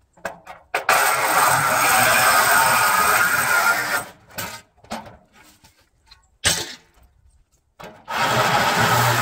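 Flex 24-volt cordless reciprocating saw cutting the steel of an RV trailer frame: a loud run of blade on metal lasting about three seconds, a few short bursts and a sharp clank in between, then a second run starting near the end.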